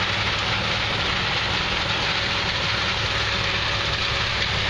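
Combine harvester running steadily: its engine hum under the loud hissing rush of the rear chopper shredding the cobs and husks.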